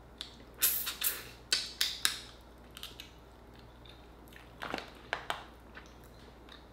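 Close-miked crunching and cracking of Dungeness crab shell as it is picked apart and eaten. Several sharp crackles come in quick succession in the first two seconds, with a few more near the middle and after.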